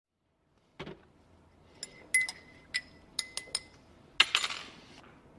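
A soft thump, then a run of light, sharp clinks with a brief ringing tone after them, and a louder cluster of clinks about four seconds in that dies away.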